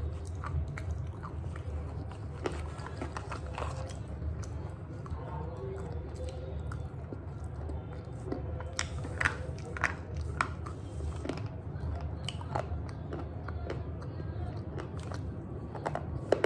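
Slate pencils being bitten and chewed: sharp crunches scattered throughout, with several louder ones about nine to ten seconds in, over a steady low hum.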